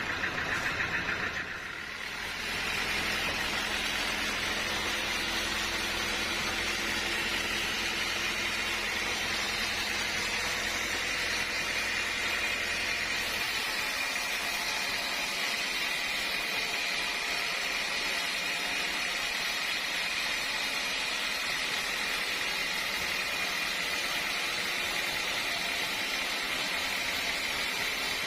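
Sawmill machinery running steadily with a constant high-pitched whine; a low hum underneath drops away about halfway through.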